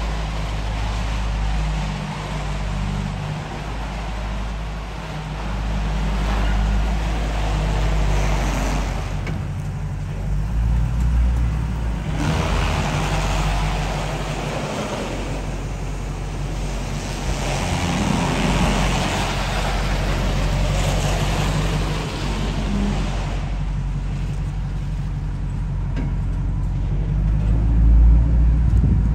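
A V8 pickup truck's engine running at a low, steady drone while being driven, with road and wind noise swelling and fading several times. A low boom near the end is the loudest moment.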